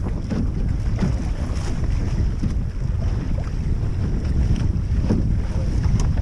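Gusting wind buffeting the microphone of a camera on a wooden sailing dinghy under way, with water rushing and splashing along the hull.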